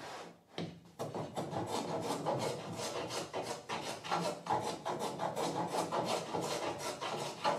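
Hand plane taking shavings off an oak box in quick, repeated scraping strokes, starting about a second in after a short pause.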